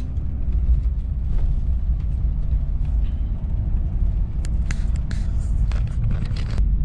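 Steady low rumble of engine and road noise inside the cabin of a moving sleeper coach, with a few faint light clicks about two-thirds of the way through.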